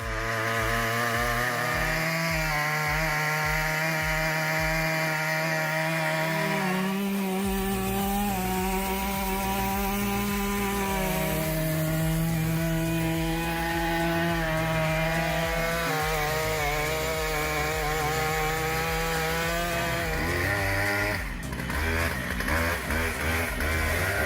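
Stihl MS 881 two-stroke chainsaw with a 67-inch bar cutting through a large log at full throttle. The engine note holds steady, rises slightly about a third of the way in and drops back as the load on the chain changes, then wavers unsteadily near the end.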